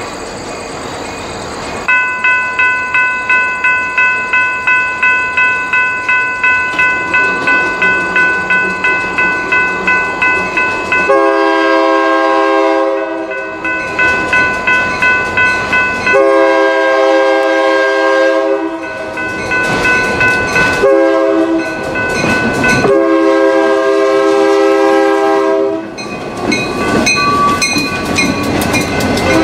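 A railroad crossing bell rings about twice a second. An approaching diesel locomotive's air horn then blows the grade-crossing signal, long, long, short, long, as a chord of several notes. Near the end the locomotive and its cars pass close by with engine and wheel noise.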